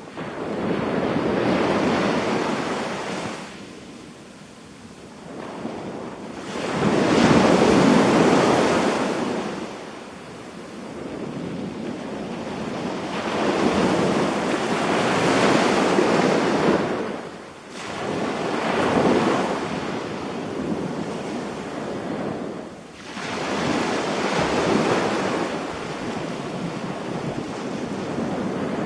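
Small waves breaking and washing up on a sandy beach, each surge swelling and ebbing every few seconds, with some wind on the microphone.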